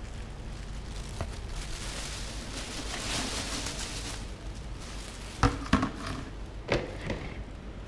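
Black plastic garbage bag rustling and crinkling as an office wastebasket is emptied into it, then a few sharp knocks about five and a half to seven seconds in as the plastic bin is set back down on the tile floor.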